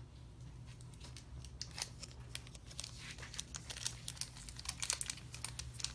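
Foil Pokémon trading-card booster pack wrappers crinkling as they are handled, a run of irregular sharp crackles that starts about a second and a half in.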